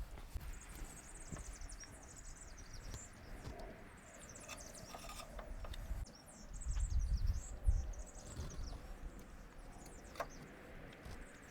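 Small birds chirping in quick, high notes, with a low rumble on the microphone about seven seconds in.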